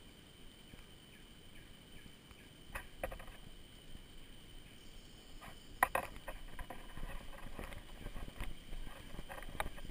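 Unicycle rolling along a dirt forest trail: scattered clicks and knocks as the wheel and frame go over bumps, growing busier from about three seconds in, with the sharpest knock about midway. A faint steady high tone sits underneath.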